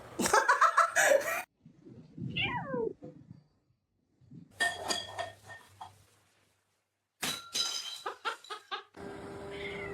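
A domestic cat meowing and yowling, one call sliding down in pitch, between runs of sharp knocks and clatter.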